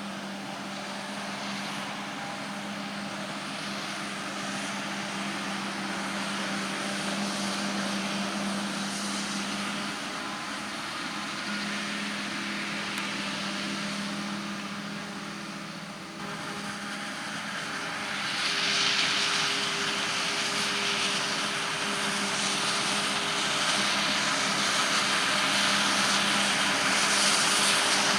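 Heavy harvest machinery, a forage harvester and tractors, running with a steady engine drone and hum. It grows louder from about two-thirds of the way in.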